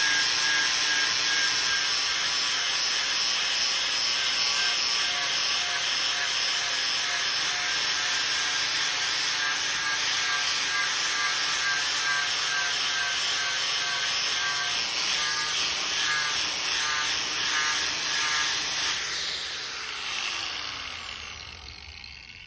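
Angle grinder with a worn flap disc sanding old rough-sawn wood, running steadily with a high whine. About nineteen seconds in it is let off and spins down, its pitch falling as it slows.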